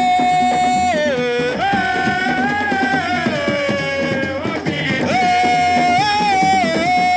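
Music: a single melody line of long held notes that slide between pitches, over a busy accompaniment.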